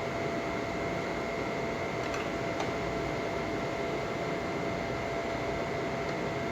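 Steady background hiss with two faint steady tones, and a couple of faint clicks a little past two seconds in.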